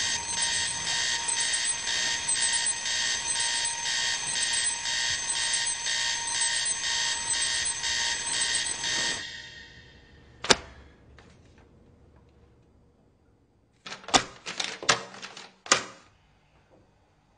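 Alarm clock ringing in a fast, evenly repeating pattern that stops suddenly about nine seconds in. It is followed by a single sharp click and, near the end, a quick cluster of clicks.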